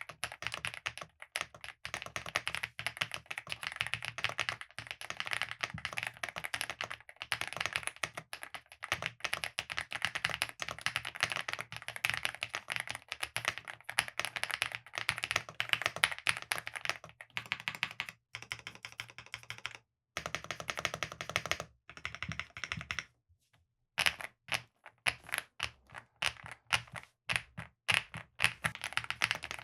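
Typing on a Chilkey ND75 aluminium 75% mechanical keyboard with pre-lubed EF Dopamine Blue linear switches and its stock foam and PE sheet. It starts as a fast, continuous run of keystrokes. After a brief pause about 23 seconds in, the keys are struck more slowly, one at a time.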